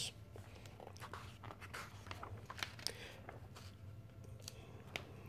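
Pages of a large hardcover book being turned by hand: faint paper rustling with scattered soft clicks.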